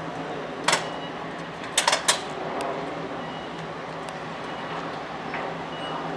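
Steady outdoor background noise with a low hum, broken by a sharp click about a second in and three quick sharp clicks or knocks around two seconds in.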